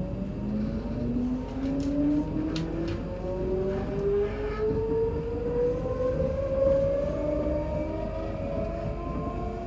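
Electric multiple unit's traction motors whining inside the carriage, the pitch rising slowly and steadily as the train accelerates away from a station, over a low rumble from the running gear.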